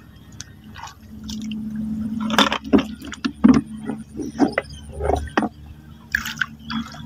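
Water splashing and sloshing in a string of irregular splashes, over a steady low hum.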